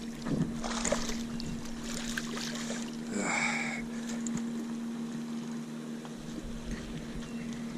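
Small male bass, hooked on a soft plastic, splashing at the surface as it is reeled up to the boat, over a steady low hum.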